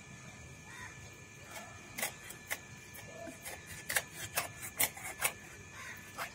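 A run of about a dozen irregular sharp clicks or taps starting about two seconds in, over a faint steady background hum with a thin high whine.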